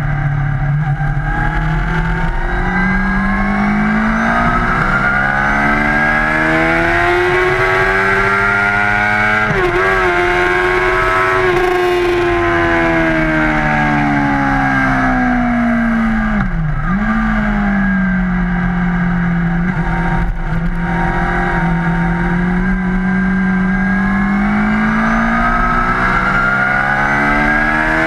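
Onboard sound of a motorcycle engine under way on a race track, pulling up through the gears with its pitch rising in steps. It falls off as the rider slows for a corner, dips sharply once about two-thirds through, then climbs again near the end, over a steady rush of wind.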